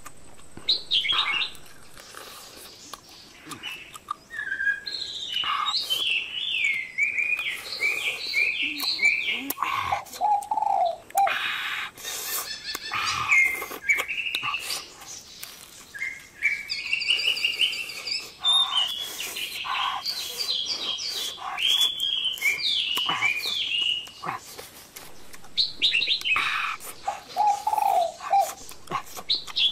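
Songbirds chirping in quick repeated runs of short notes, with a lower cooing call now and then. Scattered sharp clicks and crunches from chewing run through it.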